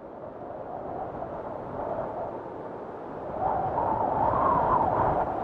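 Wind rushing, fading in and swelling louder about three and a half seconds in, with a wavering whistle-like edge.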